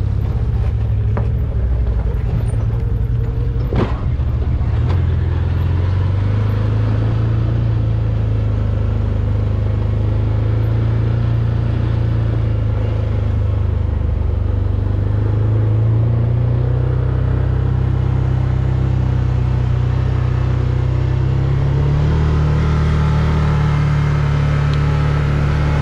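Side-by-side UTV engine running steadily while driving on a dirt track, its drone stepping up in pitch a few times as the vehicle picks up speed.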